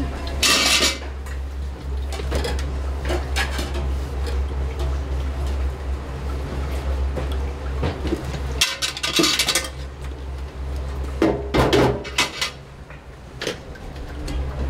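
Kitchen clatter as dishes, pans and utensils are handled and set down, with the loudest bursts shortly after the start, around the middle and a few seconds later, over a steady low hum.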